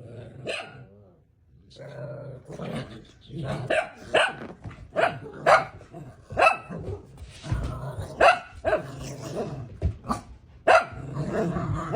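German shepherd barking over and over, about one or two barks a second after a short lull near the start, with low growling between the barks.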